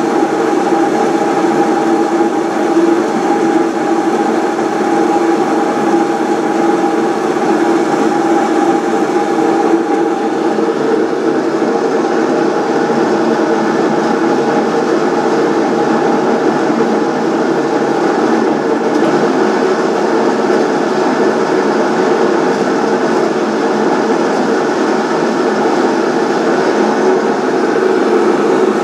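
Haas SL30 Big Bore CNC turning center running a program with its spindle turning: a steady, unbroken machine hum with several held tones.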